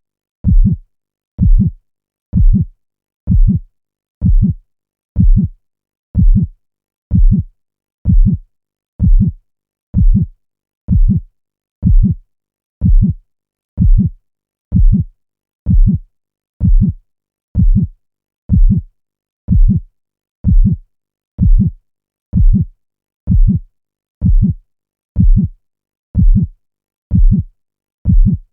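Looped heartbeat sound effect: deep, dull lub-dub thumps repeating evenly at about one beat a second, with silence between beats.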